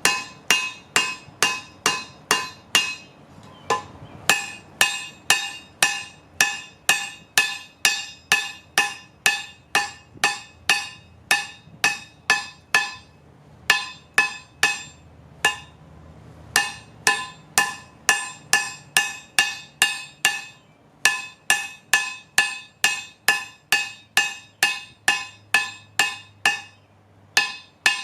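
Hammer striking on a railroad-track anvil, about two blows a second in runs broken by short pauses, each blow ringing with clear metallic tones.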